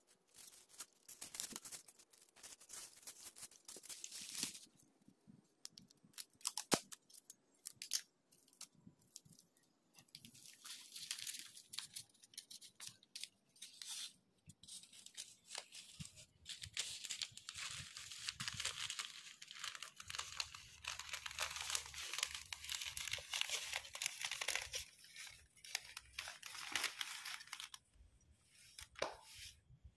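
Plastic florist wrapping sheets and spice sachets crinkling and rustling as they are handled and folded. The crinkling comes in stretches with short pauses.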